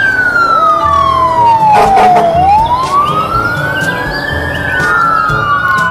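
Fire engine siren wailing slowly: its pitch falls for about two seconds, rises again for about two, and starts falling once more near the end.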